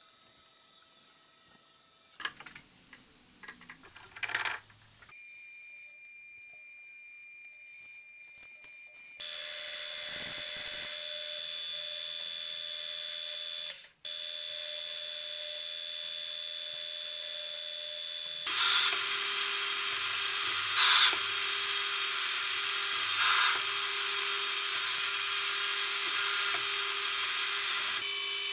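Metal lathe running and cutting, in several edited takes: turning a steel bar, then a brass part. A steady spindle whine runs under a high hiss from the cut, louder in the later takes, with a few short sharp squeals in the last third.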